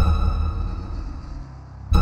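Soundtrack music: a deep electronic hit with steady ringing tones that slowly fade, followed by the next hit right at the end. The hits repeat about every two seconds, like a pulse.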